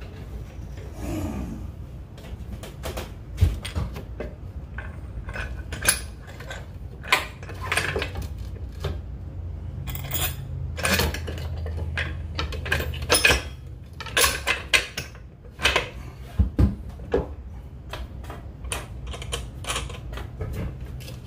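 Irregular clicks, knocks and clatter of hard objects as a large plastic spool of braided fishing line is gripped and shifted on a cluttered workbench, over a low steady hum.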